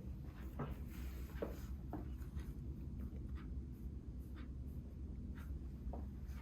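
Soft rustling of clothing and light taps of hands shifting on the body and treatment table, a faint tick or scrape about once a second, over a low steady room hum.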